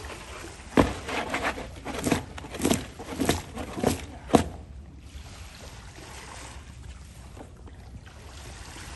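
A black plastic tub of freshly caught small fish being jostled by its rim: the wet fish slide and slap against one another and the tub in a run of irregular squelching knocks, starting about a second in and lasting about three and a half seconds.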